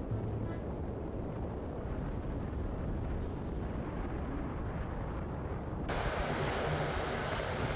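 Steady wind noise over a low rumble. About six seconds in it switches abruptly to a louder, brighter hiss.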